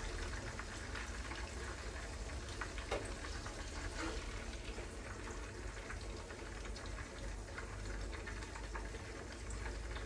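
Peppers and onions sizzling in a frying pan on the stove, with many small pops and a few light clinks of metal tongs against the pan.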